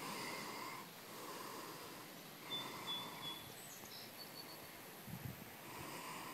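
Faint outdoor ambience with soft breathing close to the microphone every few seconds, and a few thin, high bird chirps in the middle.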